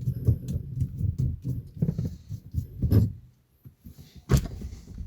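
Hands gripping and twisting a gear knob to unscrew it from the manual gear lever: irregular rubbing and handling noise with small clicks, and a sharp click about four seconds in.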